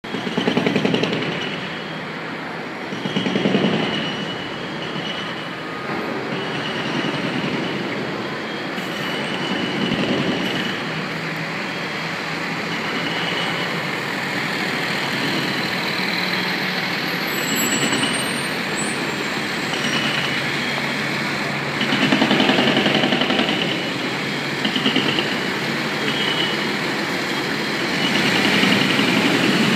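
Heavy city street traffic: a steady roar of trucks and buses, with a few louder swells as vehicles pass.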